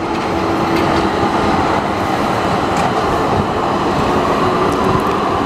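City tram passing close by: a steady rumble of steel wheels on rails, with a faint steady hum.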